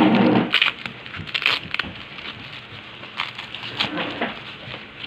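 Rustling and crinkling of white packing wrap as it is unfolded around a phone LCD panel. The loudest rustle comes right at the start, followed by several short, sharp crackles.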